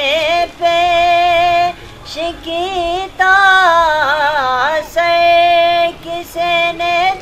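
A man singing a Punjabi naat in a high voice with no instruments. He holds long melismatic notes with wavering ornaments and pauses briefly between phrases.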